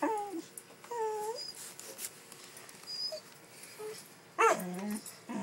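Dog whining in three short whimpers: two high, falling ones in the first second or so, then a louder, longer and lower one near the end.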